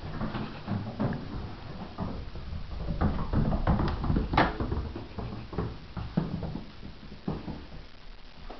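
Footsteps and scattered light clicks and knocks on tile and hardwood floors over a dull rumble of the camera being carried, with one sharper click about four and a half seconds in.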